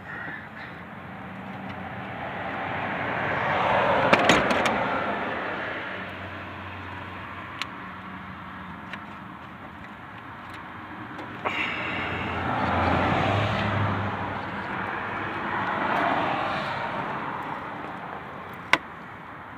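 Cars passing on the road: three or so vehicles go by, each swelling and fading over a few seconds, with a few sharp clicks in between.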